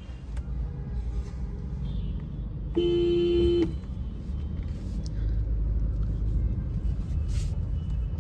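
Steady low rumble of a car moving slowly through traffic, heard from inside the cabin, with one horn blast of nearly a second about three seconds in.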